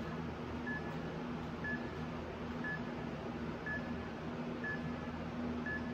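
Interval timer beeping once a second, six short high beeps counting down to the next work interval, over a steady low hum.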